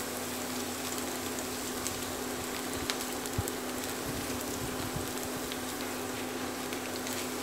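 Chopped ginger and garlic sizzling in a little hot refined vegetable oil in a kadai, stirred with a spatula: a steady hiss with scattered small crackles.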